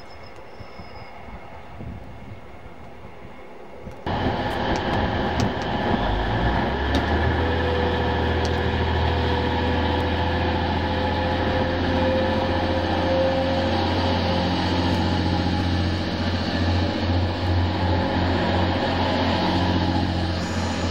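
Faint noise of a train moving off, then, after a cut, a Class 185 Desiro diesel multiple unit coming into the platform: a steady diesel engine drone that builds about six seconds in, with a steady high whine over it for several seconds in the middle.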